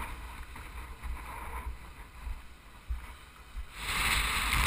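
Low, fitful wind buffeting on the microphone of a surfski-mounted camera. About four seconds in it gives way to a loud, steady rush of wind and water as the surfski runs through rough open sea.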